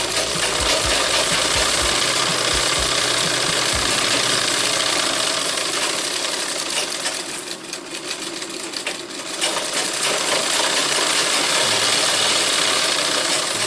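Sewing machine running steadily, stitching a seam through cotton fabric. It eases off briefly about halfway through, then runs on.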